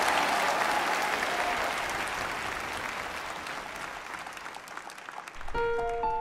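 A large audience applauding, the clapping slowly dying away. Near the end a piano starts in with a few single held notes.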